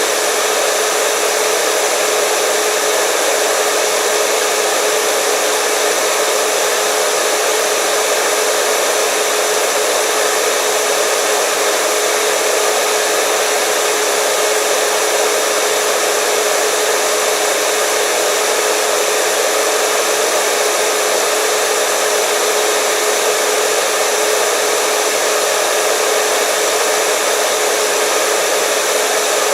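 Hair dryer running steadily: a constant rush of air with a steady whine from its motor.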